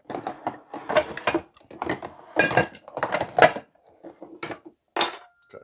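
A run of clattering knocks and clinks as cookware and other kitchen items are moved about on and around a gas stove.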